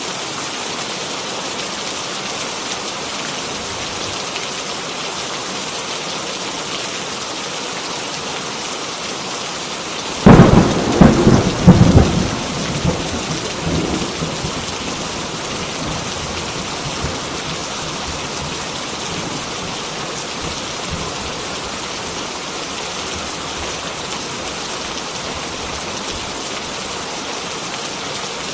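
Heavy rain falling steadily, with a sudden thunderclap about a third of the way in that cracks loudly for a couple of seconds and rumbles away over a few more.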